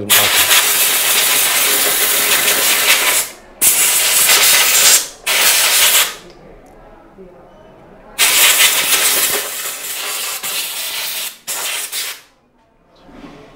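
Compressed-air blow gun blasting air onto the brush holder and commutator of an electric lawnmower motor, blowing off leftover contact cleaner. Five loud hissing blasts: a long one, two shorter ones, a pause of about two seconds, then another long blast and a short one.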